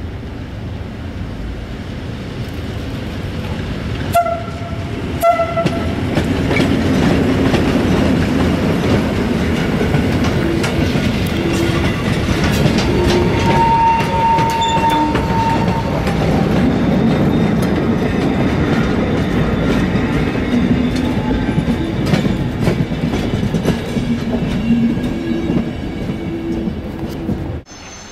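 Heritage train passing close, hauled by an FS E.646 electric locomotive with steam locomotive 746.038 in the consist: wheels rumbling and clattering on the rails, growing louder as it goes by. Two short horn blasts sound about four and five seconds in. The sound cuts off abruptly near the end.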